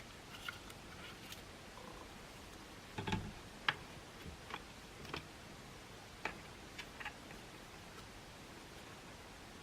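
Scattered light clicks and taps of small plastic and metal parts being handled while a cordless stick vacuum is taken apart. A duller knock comes about three seconds in, and the sharpest click follows just after it.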